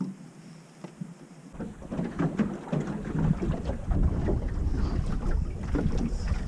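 Wind buffeting the microphone in a low, gusty rumble, with water slapping and splashing against a small boat's hull. It starts about a second and a half in and grows louder; before that it is fairly quiet.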